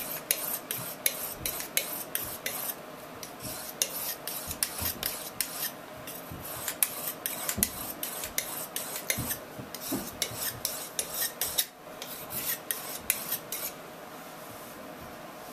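Steel edge of a hooked linoleum knife stroked rapidly over an oiled soft Arkansas slip stone: runs of short rasping strokes, several a second, broken by brief pauses. The strokes stop near the end.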